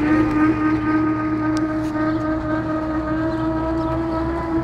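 Engine of a trackless tourist road train running steadily as it pulls its open passenger carriages along, a steady drone that holds one pitch.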